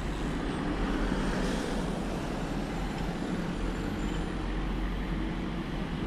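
Steady road traffic on a city street: the hum of engines and tyres from passing cars and vans, with a low rumble throughout and a brief hiss about a second and a half in.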